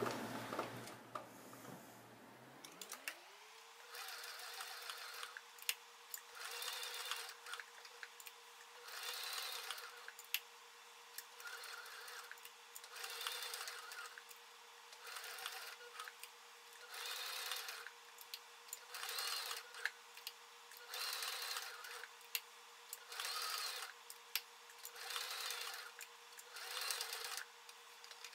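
Electric sewing machine stitching through tubular webbing in short runs, about one burst of stitching every two seconds, in sped-up playback. Under it runs a steady hum that rises in pitch about three seconds in and then holds.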